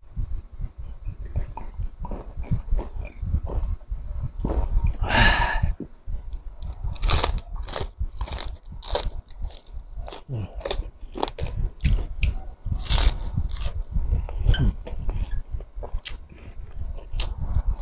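Close-up eating sounds of crispy chicharon bulaklak, deep-fried pork intestine: a run of sharp, loud crunches as pieces are bitten and chewed, with wet chewing in between.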